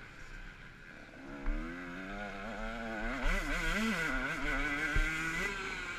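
Motocross bike engine revving up and down as the rider works the throttle and gears, quieter for the first second and louder from about three seconds in. Two sharp thuds, about a second and a half in and near the end.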